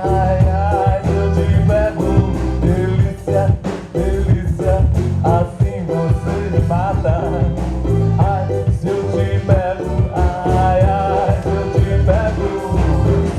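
A song with a sung vocal line over a steady drum beat and heavy bass.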